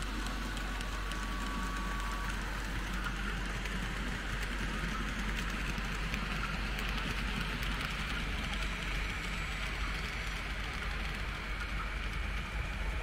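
Märklin H0 model trains running on the layout: a steady rattling hiss of metal wheels rolling on the rails, over a constant low hum. A faint thin whine fades out about two seconds in.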